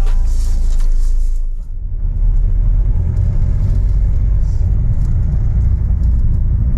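Car driving, heard from inside the cabin: a steady low rumble of engine and road noise, with a brief dip about a second and a half in.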